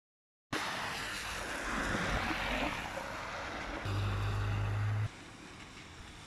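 Outdoor street noise with wind buffeting the microphone, starting suddenly about half a second in. A steady low hum comes in for about a second in the middle, then the sound cuts to a quieter hiss.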